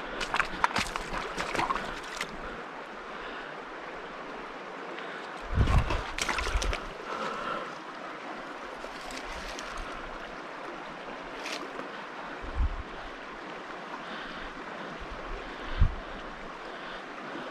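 Steady wash of a shallow creek and wind on the microphone, with scattered clicks, rustles and a few low bumps as a hand rummages through wet fallen leaves and stones at the water's edge; the busiest handling comes about six seconds in.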